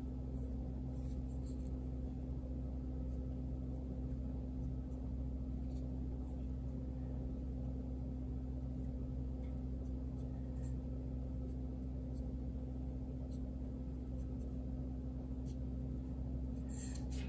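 Faint, scattered scratches of a small paintbrush working oil paint onto a wooden model part, over a steady low electrical hum.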